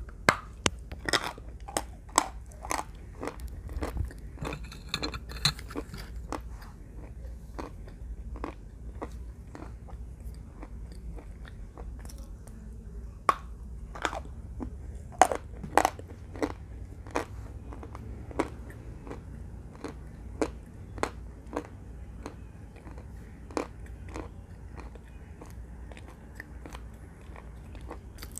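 Close-miked crunching of Russian chalk being bitten and chewed: sharp, dry cracks at irregular intervals, about one to two a second, thickest in the first few seconds and sparser later.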